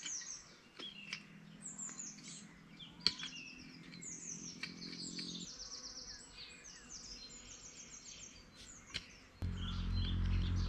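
Small birds chirping and trilling in short, repeated high phrases. A low steady hum sets in near the end and is louder than the birdsong.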